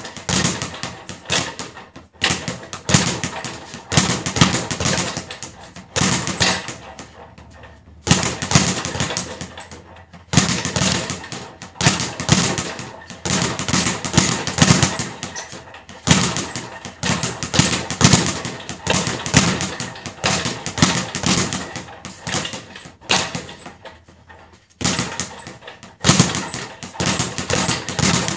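Speed bag being punched, the leather bag rattling rapidly against the rebound platform in runs of fast strikes broken by several short pauses.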